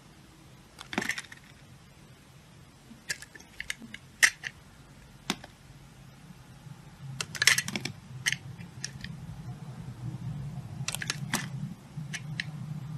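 Snap-off utility knife blade shaving thin curls from the edge of a bar of soap: crisp clicks and crackles in short clusters, the loudest about four seconds in and again about seven and a half seconds in. A low steady hum sits underneath and grows louder over the second half.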